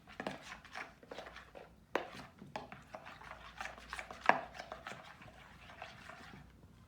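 Small knocks, taps and scrapes of a spoon and containers being handled while making slime, with two sharper knocks, about two seconds and about four seconds in.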